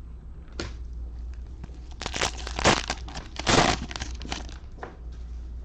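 Cellophane wrapping of a trading-card pack crinkling and tearing as it is handled, in a cluster of rough bursts over about two seconds, the loudest near the middle, over a steady low hum.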